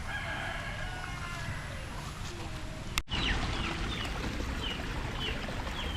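Birds chirping outdoors: a run of short, quick falling chirps in the second half, over a steady rural background. A sharp click with a brief dropout about halfway through.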